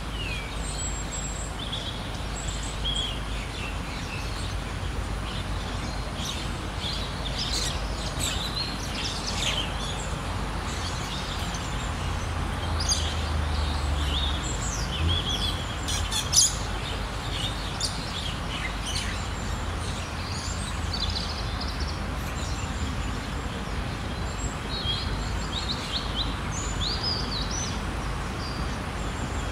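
Small birds chirping, with many short high calls and quick whistles scattered through, busiest in the middle and again near the end. Underneath runs a steady low rumble, and there is one sharp tap about sixteen seconds in.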